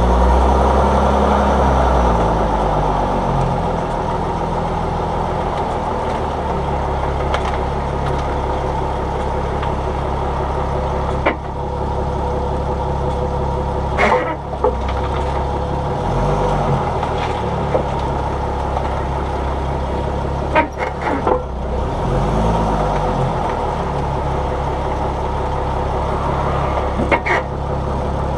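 A vehicle being driven, with steady engine and road noise whose pitch rises and falls, broken by a few sharp knocks from the suspension: single knocks spaced several seconds apart and a quick run of three about three-quarters of the way through. These knocks are the clunking the driver is trying to isolate.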